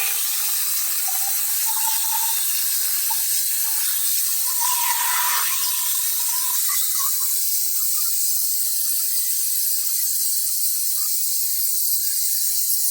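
CNC plasma torch cutting quarter-inch hot-rolled steel plate: a steady, loud, high hiss, with a brief swell about five seconds in.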